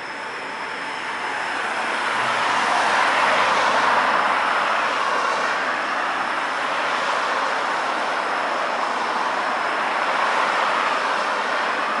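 Road traffic on a wet road after rain: the hiss of tyres on wet asphalt, swelling over the first few seconds and then holding steady.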